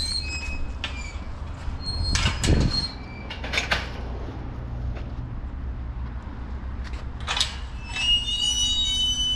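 Chain-link dog-park gate being opened and shut, with metal clanks from the latch and frame and squealing hinges; a long high squeal comes near the end.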